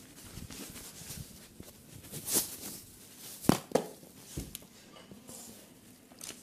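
Quiet room noise broken by a few short knocks and clicks, the sharpest about three and a half seconds in, followed closely by another.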